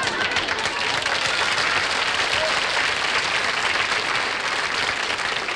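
Studio audience applauding steadily, a dense patter of many hands clapping.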